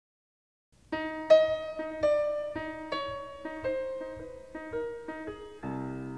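Solo piano music, starting about a second in: a slow melody of single notes stepping downward over a repeated lower note, then a fuller chord near the end.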